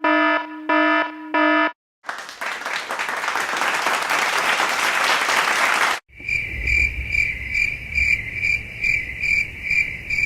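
A run of stock sound effects. First come three short identical electronic tones. Then about four seconds of applause. After an abrupt cut comes a cricket-chirping effect, pulsing about three times a second over a low background hiss.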